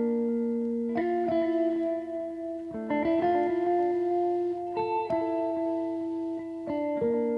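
Background music: plucked guitar chords left ringing, a new chord struck every second or two.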